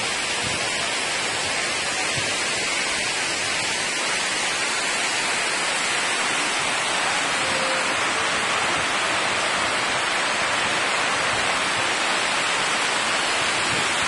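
Waterfall and the stream cascading below it: a steady, even rush of falling water.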